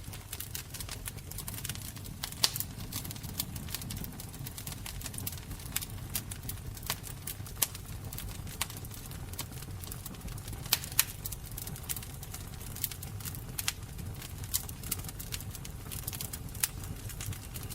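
Wood fire burning with a low steady rumble and irregular crackles and snaps, a few sharper pops among them.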